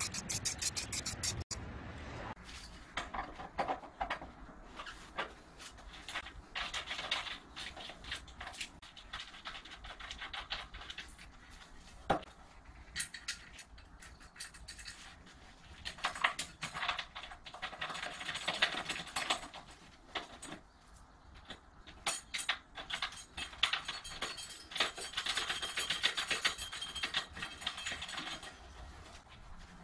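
Light clinks, scrapes and rustles of a metal mounting bracket being handled and fitted against an electric water heater tank, with a sharper click about twelve seconds in.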